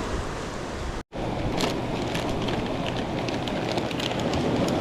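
Strong wind on the microphone over surf, a steady rushing noise. It drops out completely for an instant about a second in, and after that it carries many short crackling ticks.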